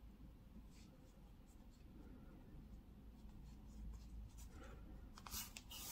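Near silence with faint scratching and rustling of a yarn needle and wool yarn being drawn through crocheted fabric, as a yarn end is woven into a sewn seam. There are a few slightly louder rustles near the end.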